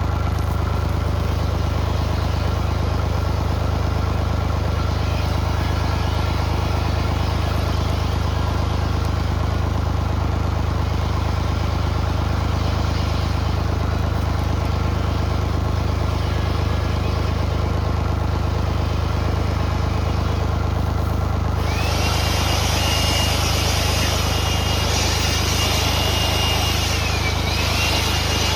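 Mini excavator's diesel engine idling steadily while it warms up. About 22 seconds in a high hydraulic whine and hiss join the engine note, dipping briefly in pitch near the end.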